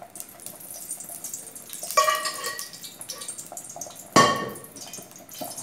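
Rendered pork fat being spooned and scraped out of a metal pan into a steel pot, with light scraping and dripping. Two ringing metal clanks of spoon and pans, about two seconds in and again, louder, about four seconds in.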